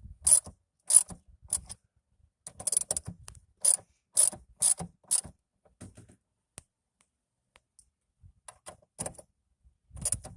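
Ratchet wrench clicking in short strokes as it runs a jam nut down the gear shifter's threaded post. The clicks come in spurts through the first five seconds or so, then only a few scattered ones toward the end.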